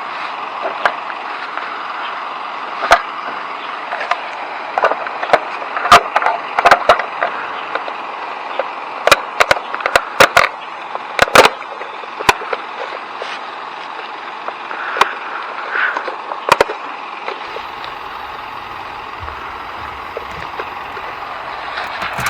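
Irregular sharp clicks and knocks, several close together, over a steady hiss.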